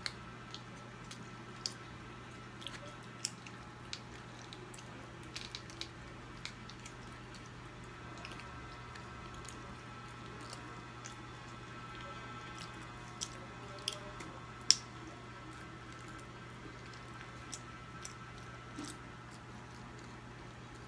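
Child biting and chewing pizza close to the microphone: soft wet mouth sounds and scattered small clicks, with one sharper click about fifteen seconds in.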